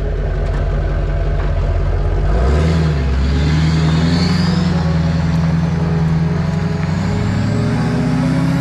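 2004.5 LLY Duramax 6.6-litre V8 turbodiesel, fitted with a Banks Ram-Air intake, running steadily, then about two and a half seconds in its note steps up and keeps climbing slowly as the truck pulls away, with a faint high whine rising over it.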